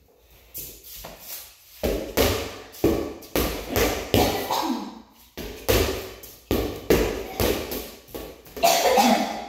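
Rubber playground ball being whacked by hand and bouncing on a concrete floor, a quick run of about a dozen echoing thuds, roughly two a second, starting about two seconds in.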